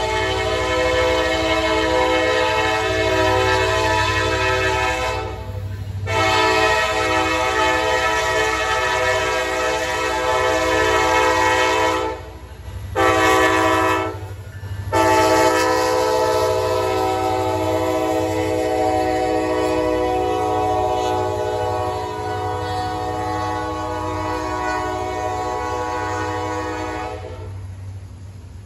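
Norfolk Southern SD60E locomotive's air horn blowing the grade-crossing signal: two long blasts, one short, one long. Beneath it runs the steady low rumble of the diesel locomotives and freight cars rolling by. The horn stops near the end and only the rumble of the cars remains.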